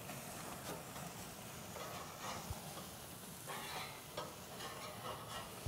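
Ground-brisket burger patties sizzling directly over hot charcoal, their fat dripping onto the coals and crackling several times.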